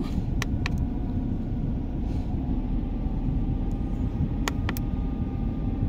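Steady low rumble of a Ford EcoSport's 1.5 L engine idling, heard inside the cabin. Two pairs of short sharp clicks come from the buttons of a handheld OBD scan tool being pressed.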